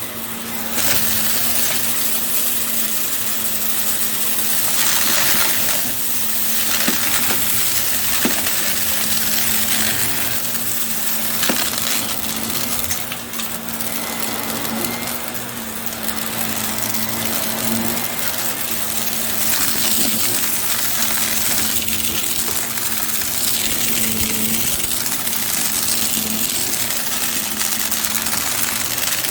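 Bissell compact vacuum cleaner running steadily: a constant motor hum under rushing air, getting louder about a second in, with scattered sharp clicks and clinks.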